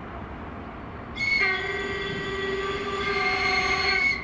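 Locomotive horn sounding one long blast of about three seconds, several pitches at once. It starts about a second in and cuts off sharply near the end, over a low steady rumble.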